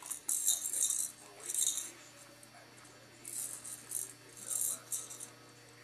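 A baby's rattle toy shaken in short, irregular bursts, about half a dozen times.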